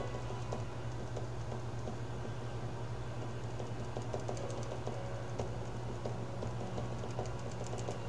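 Quick light taps and scratches of a hand-held paint tool dabbing paint onto the painting surface, coming in clusters, the thickest about halfway through and again near the end, over a steady low hum.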